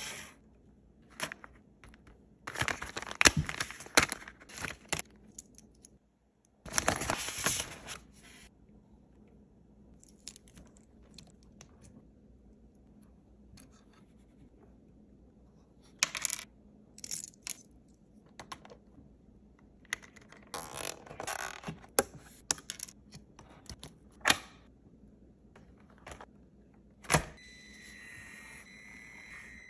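Small plastic parts of a 1/18-scale Traxxas TRX-4M Land Rover Defender body and light kit being handled and fitted: scattered clicks, taps and short scrapes in bursts with quiet gaps. Near the end comes one sharp click, then a faint steady high hum.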